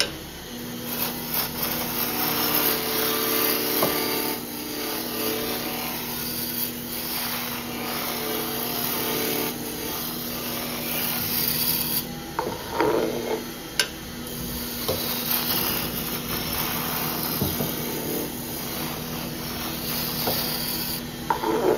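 Wood lathe running with a hand gouge cutting a spinning square blank down to a round cylinder: a steady hiss of the cut over the lathe motor's constant hum, with a few short knocks and a brief lull in the cut about two-thirds of the way through.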